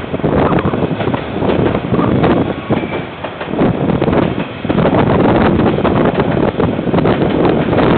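Wind buffeting the microphone in irregular gusts over the rumble of a passing container freight train.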